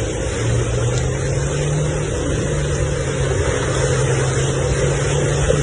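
Car engine running steadily, its note stepping up slightly about half a second in and again about two seconds in, over a constant wash of noise.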